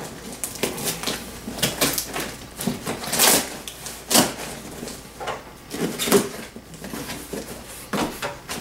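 Packing tape being peeled off a cardboard shipping box and the cardboard flaps pulled open, an irregular run of ripping, crackling and scraping with the loudest rip about three seconds in.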